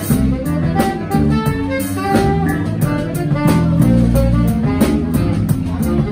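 Live jazz trio playing: saxophone melody over an electric bass line and a drum kit keeping a steady beat with cymbal strokes.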